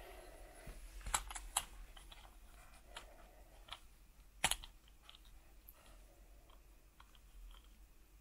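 Plastic toy figures being handled, giving scattered light clicks and taps, with a few sharper clicks about a second in and one louder click about four and a half seconds in.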